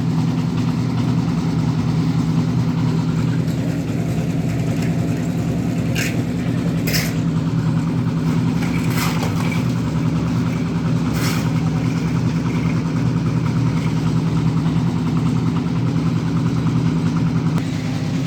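Engine of a concrete mixer running steadily during a concrete pour, with a few short clinks or scrapes of tools over it.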